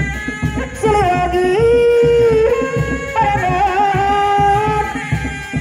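Sundanese Seni Reak ensemble music: a sustained melody that slides from one long held note to the next over steady drumming.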